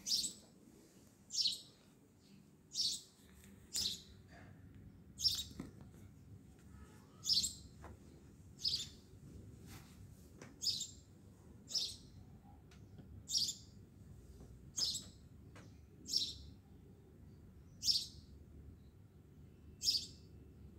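A bird chirping: short high calls repeated evenly about every second and a half, over a low steady background rumble.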